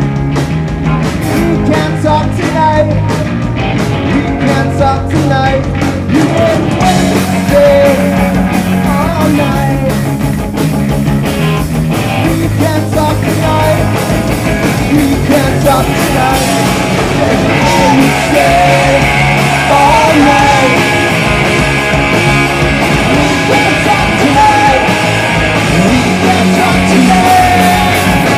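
Punk rock band playing live: distorted electric guitars, bass guitar and drums, loud and continuous, with singing at times.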